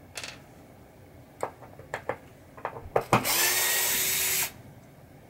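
A few light metal clicks and taps, then a cordless power screwdriver runs steadily for about a second on a screw, stopping a little after the four-second mark.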